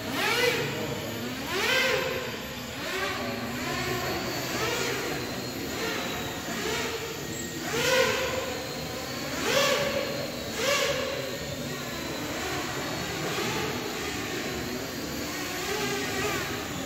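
Small electric quadcopter drone flying, its motors and propellers whirring, with the pitch swooping up and then down again several times as the throttle is pushed and eased.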